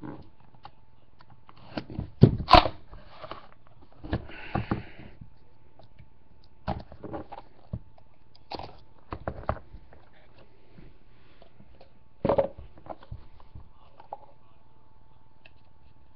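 Hands opening a sealed cardboard trading-card box and unwrapping its pack: scattered knocks, taps and clicks, with a short crinkle of plastic wrap about four seconds in. A faint steady tone runs underneath from about five seconds on.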